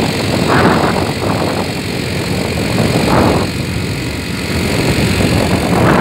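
Steady rumble of a moving vehicle, with wind buffeting the microphone. The wind swells about half a second in, again around three seconds, and near the end.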